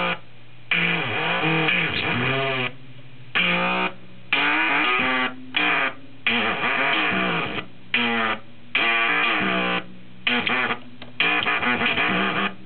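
Circuit-bent Kawasaki toy keyboard making glitchy electronic tones as light is blocked from its photoresistor: bursts of pitched sound that bend and warble, cutting in and out about once a second.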